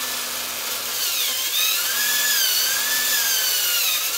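Electric drill running a step bit through HDPE plastic to enlarge a hole: a steady cutting hiss under a motor whine whose pitch sags and recovers several times as the bit bites.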